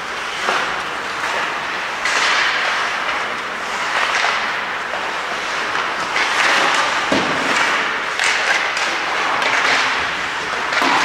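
Ice hockey play: skate blades scraping across the ice in rising and falling washes, with sharp clacks of sticks on the puck and occasional thuds.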